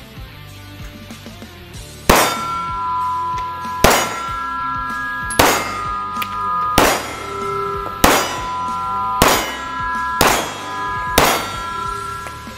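Semi-automatic pistol firing eight single shots in an indoor range, starting about two seconds in, spaced roughly a second and a half apart and coming a little faster toward the end. Each shot is followed by a clear metallic ringing that carries on until the next shot.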